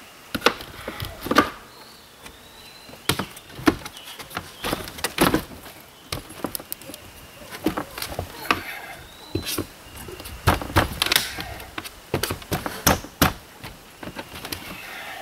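Hand tool prying and knocking at a camper's metal door frame and siding: irregular clanks, knocks and scrapes, a few a second, with no drill or motor running.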